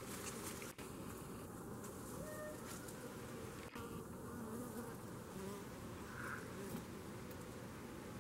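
Faint buzzing of uruçu stingless bees and flies around bananas in a feeder, with short wavering hums coming and going as insects fly close.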